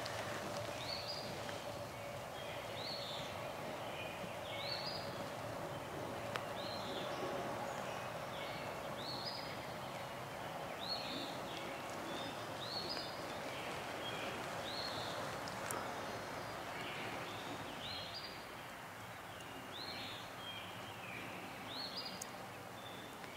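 A songbird calling in short chirps about once a second, over steady outdoor background noise and a faint steady hum that fades out about two-thirds of the way through.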